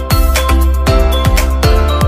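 Background music with a steady electronic beat and deep bass.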